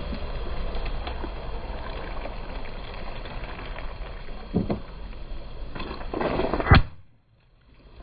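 A car rolling over and crushing objects: a steady rumbling noise with a small crunch about four and a half seconds in, then a louder crackling build-up ending in a loud sharp pop near seven seconds, after which the sound cuts out for about a second.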